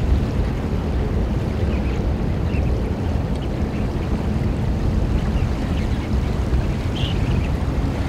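Steady low rumble of wind and shore water at the tideline. Faint, short, high shorebird calls come now and then, the clearest about seven seconds in.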